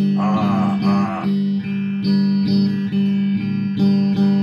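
Stratocaster-style electric guitar strummed in a steady repeated chord pattern, about two strokes a second, with a strong sustained low note under the chords.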